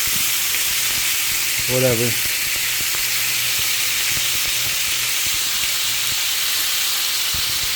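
Marinated bulgogi beef frying in hot canola oil in a frying pan, a steady high sizzle.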